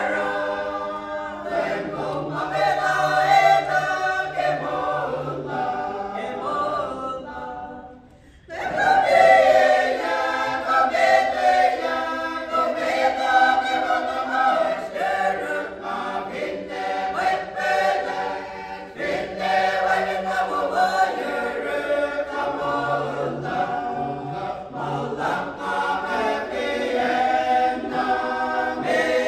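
Mixed church choir of men's and women's voices singing a hymn a cappella. The singing breaks off briefly about eight seconds in and comes back in together.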